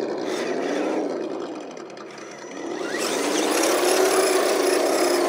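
RC4WD Trail Finder 2 scale crawler truck driving through shallow water over rocks: a pitched whine that rises and falls with the throttle, briefly in the first second and then longer from about two and a half seconds in, with water splashing off the tyres.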